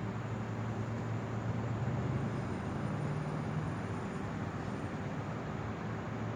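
Boat engine running steadily: a low drone under a constant rush of noise, the drone rising slightly in pitch and level for a couple of seconds in the middle.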